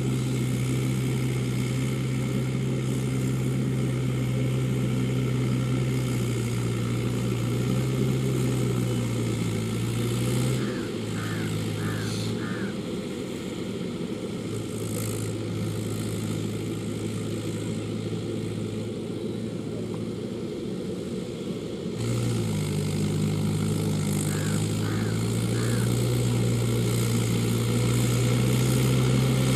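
Mahindra 475 DI tractor's four-cylinder diesel engine running steadily while pulling a disc plough. About a third of the way in the engine note drops lower and quieter, then comes back up after roughly ten seconds.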